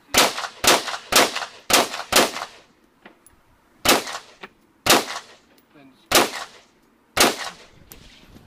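Semi-automatic rifle fired nine times: a quick string of five shots about half a second apart, then four slower shots about a second apart, each followed by a short echo.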